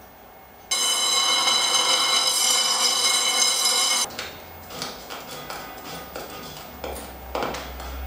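Portable radio-cassette player playing loud music that starts abruptly under a second in and cuts off dead about four seconds in as it is switched off. After that come scattered light knocks and rustles of handling food and a plastic bag on the counter.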